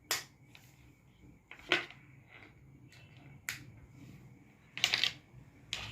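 Hands handling a charging cable and its packaging: about five short clicks and rustles, a second or so apart, the one near the end longer.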